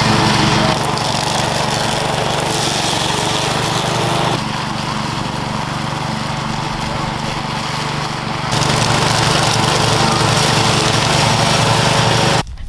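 Ride-on lawn mower engine running steadily while mowing through tall overgrowth, its loudness stepping down and back up a couple of times before cutting off abruptly near the end.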